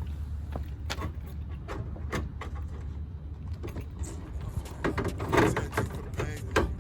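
Scattered clicks and knocks of parts and tools being handled on a car's trunk lid, with a louder scraping rustle about five seconds in, over a steady low hum.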